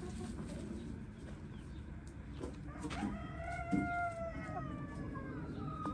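Shamo rooster crowing: one long drawn-out crow starting about three seconds in, its pitch sinking slightly, cut off suddenly at the end.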